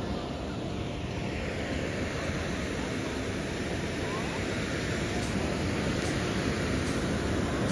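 Hand-held tube fireworks (tezutsu hanabi) spraying sparks, a steady rushing hiss that grows a little louder toward the end.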